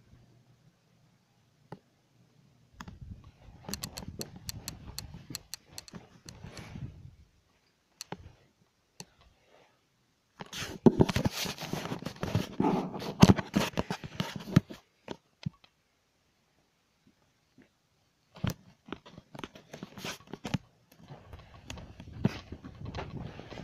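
Rustling and crackling handling noise on a handheld camera's microphone, in three bursts of many small clicks; the middle burst is the loudest, and there is near silence between the bursts.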